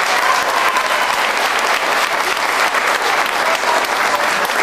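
Audience applauding steadily, a dense crackle of many hands clapping.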